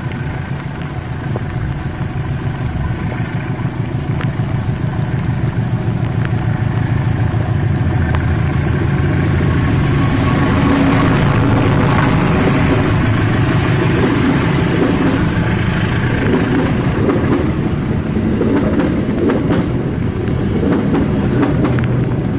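Diesel locomotive hauling a train as it departs, its engine running steadily under load and growing louder over the first ten seconds or so, then holding; a few sharp clicks come near the end.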